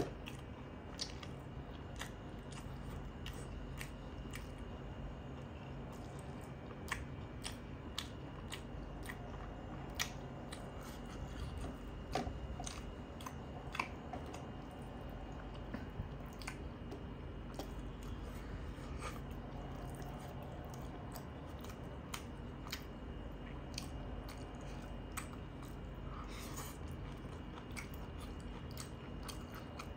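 Close-miked chewing of a mouthful of rice and curry eaten by hand, with frequent short clicks and smacks, over a faint steady hum.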